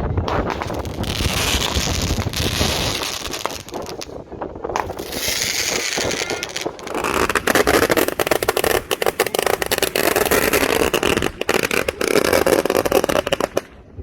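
Diwali fireworks going off: hissing bursts, then a long run of rapid crackling pops that fills the second half.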